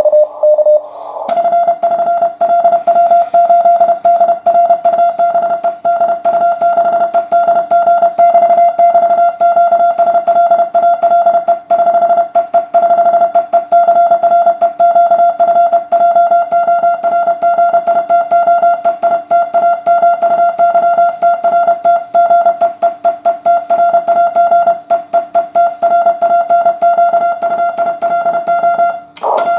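Morse code (CW) received on an amateur radio: a single steady, mid-pitched tone keyed on and off in rapid dots and dashes over a steady hiss of band noise. It breaks off briefly near the end, then resumes.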